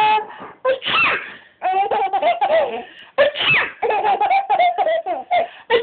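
A young child laughing hard in repeated bursts of high-pitched giggles.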